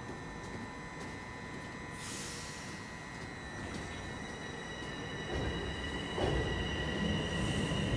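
Bombardier Toronto Rocket subway train starting to pull out of the station. A burst of hiss comes about two seconds in. A high steady tone then comes in as the train gets moving, and a low rumble builds and grows louder over the last three seconds.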